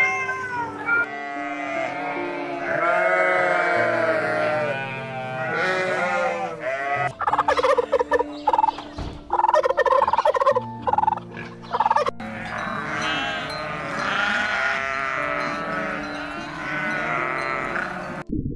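A string of animal calls over background music: a kitten meowing, then turkeys gobbling in rapid runs for about five seconds, then a goat bleating near the end.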